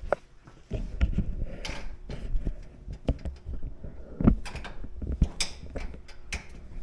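Scattered clicks, knocks and scrapes of hands working with tools and parts, the sharpest knock about four seconds in, over a low rumble.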